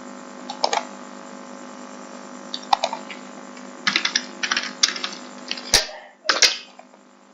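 Computer keyboard typing in short bursts of keystrokes, with two louder clacks a little before the end, over a steady low hum.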